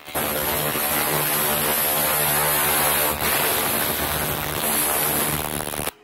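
1 kW handheld laser rust remover ablating rust off a steel cylinder: a loud, steady crackling hiss with a high-pitched whine over a low hum, starting abruptly and cutting off just before the end.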